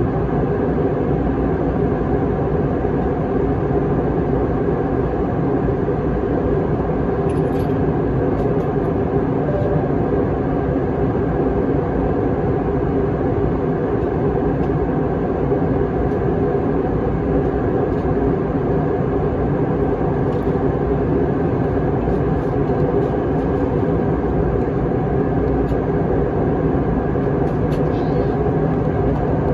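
Steady in-flight cabin drone of an Airbus A321 airliner: jet engine and airflow noise, with an even hum running through it.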